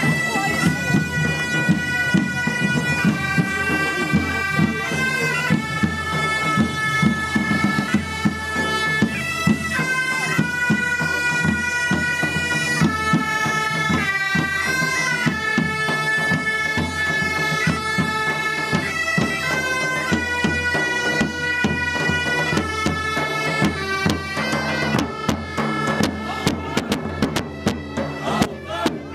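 Several medieval-style bagpipes playing a tune over a steady drone, with a drumbeat thumping underneath.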